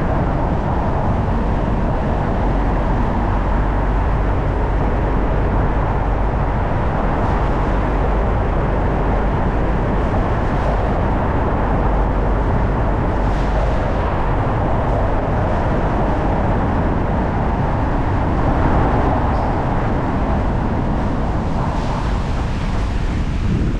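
Car driving at a steady pace: continuous engine and tyre-on-road noise.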